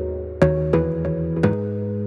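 Background music: plucked-string chords changing about twice a second.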